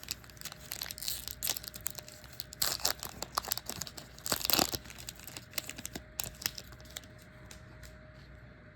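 A trading card pack wrapper being torn open and crinkled in the hands: crackling, with the loudest bursts in the middle, then dying down to light handling after about six seconds.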